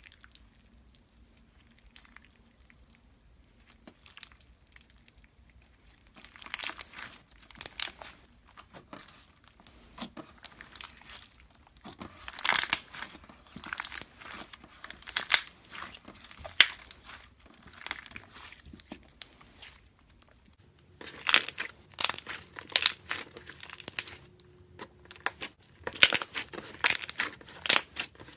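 Slime being squeezed and worked by hand, giving dense runs of sharp crackling clicks that start about six seconds in and pause briefly twice near the end.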